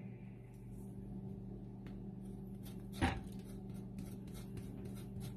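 Metal tongs knock once sharply against a metal saucepan about three seconds in, then tick and scrape against it in quick, irregular clicks while stirring shredded cheese into cream sauce, over a steady low hum.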